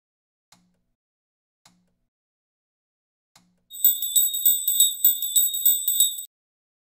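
Three faint click sound effects about a second apart, then a high-pitched bell jingling rapidly for about two and a half seconds: the notification-bell sound effect of a subscribe animation.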